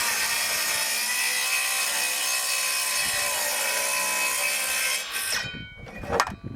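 ALDI Ferrex 18V cordless circular saw ripping lengthwise through a timber board with a steady high whine. About five seconds in the cut finishes and the saw is released, its blade spinning down, followed by a couple of sharp knocks.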